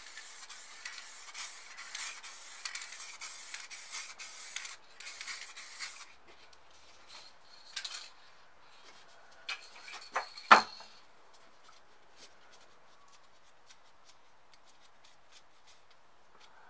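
Rubbing and scraping on a surface for about six seconds, then a few separate knocks with a brief squeak about ten seconds in, followed by faint ticks.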